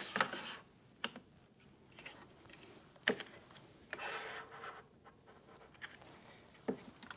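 Quiet handling sounds from setting up the table saw's sliding table and miter fence: a few light knocks and clicks, and a short rubbing or scraping sound about four seconds in. The saw is not running.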